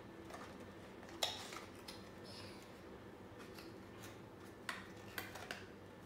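Small clicks and taps of a cardboard gift box being handled and turned over in the hands: one sharper click about a second in and a few lighter ones near the end.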